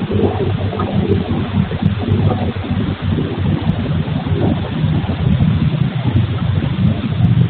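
Steady, loud running noise of granite-cutting and processing machinery from a neighbouring stone workshop: a continuous low motor hum with rough rumbling over it, heard through a security camera's microphone.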